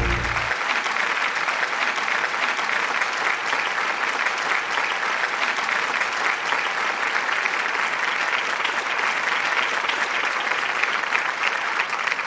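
Many people clapping: dense, steady applause that holds at an even level throughout.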